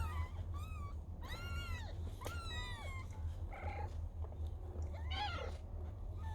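Domestic cat meowing about five times in short, arching mews, one of them a longer cry that slides down in pitch, over a steady low hum.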